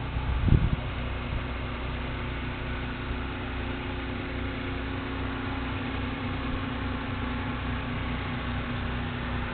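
A steady low machine hum with a held tone, and a brief low thump about half a second in.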